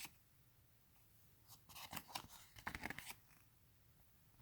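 Faint handling noise of paper and packaging: a short run of light rustles and clicks from about one and a half to three seconds in, otherwise near silence.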